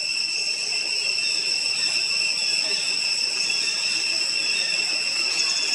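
Steady high-pitched insect chorus, several tones droning together without a break.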